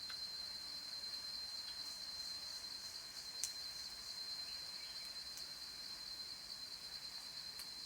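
Cicadas singing, a continuous high-pitched drone held at one steady pitch. A single faint click comes about three and a half seconds in.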